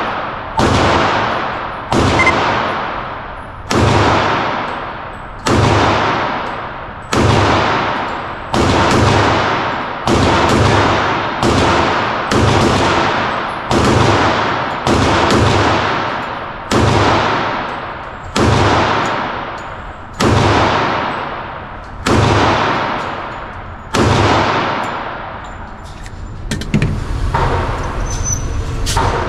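Glock 21 .45 ACP pistol fired in slow, steady single shots, about two dozen at roughly one a second, each shot ringing out in the echo of an indoor range. The shots stop near the end and a quieter steady noise follows.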